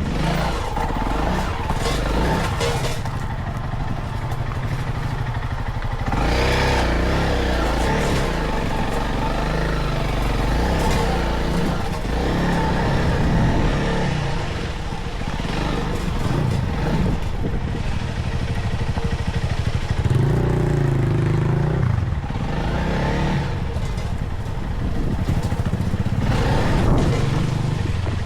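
Motorcycle engine running as the bike is ridden off-road, its pitch rising and falling with the throttle, with some rattling.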